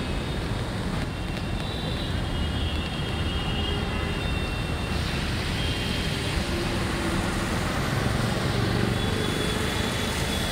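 Road traffic on a waterlogged street: vehicle engines running, and from about halfway in a car and an auto-rickshaw passing close with tyres hissing and splashing through standing water.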